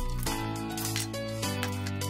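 Background music: sustained synth chords that change about a quarter second in and again about a second and a half in, over a light, regular percussive tick.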